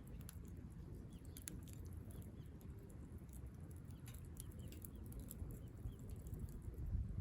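Small wood fire crackling in a compact Firebox stove: scattered sharp pops and clicks over a low steady rumble.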